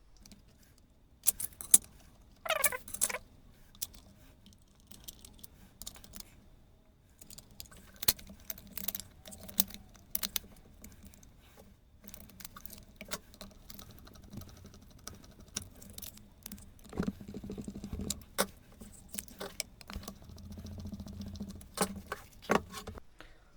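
Irregular clicks, taps and rattles of the metal and plastic parts of a Crown CT11001 plunge router being handled and fitted back together, with a brief squeak falling in pitch about two and a half seconds in.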